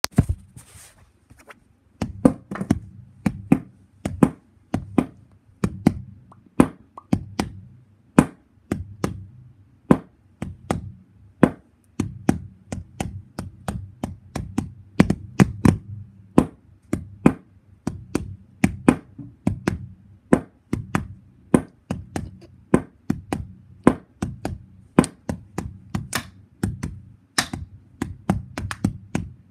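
Irregular sharp taps and knocks, roughly two a second, over a low steady hum.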